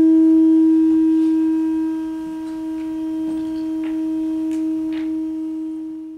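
One long note held at a steady pitch, fairly pure with faint overtones, fading out near the end, with a few faint clicks beneath it.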